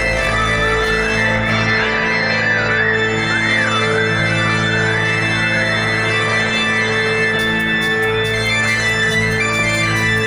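Organ music of sustained low chords, with a high line that wavers up and down through the first half. A fast ticking beat joins about seven seconds in.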